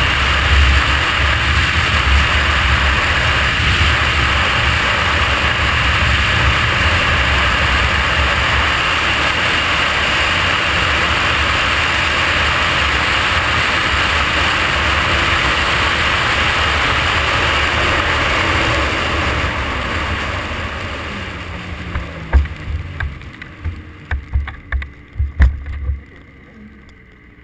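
Snowmobile running at speed, its engine mixed with heavy wind rush on the microphone. About twenty seconds in the engine eases off and the pitch drops as the sled slows, and several sharp knocks follow.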